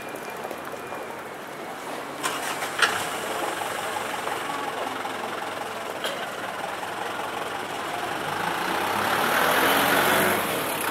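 Street traffic with engines running, and a vehicle passing close by near the end. There are a few sharp knocks about two to three seconds in and another around six seconds.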